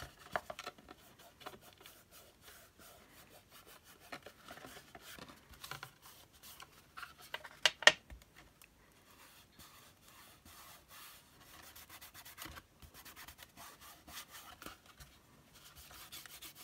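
Lustre wax being rubbed onto the edges of a matte board journal cover: soft, intermittent rubbing and scratching, with a sharp click about eight seconds in.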